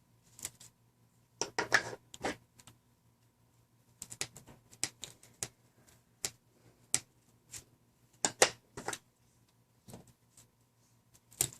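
Sparse, irregular small clicks and ticks of a Phillips screwdriver and tweezers working tiny screws out of a Samsung Rant slider phone's plastic frame. There are short clusters of clicks, the loudest about eight and a half seconds in.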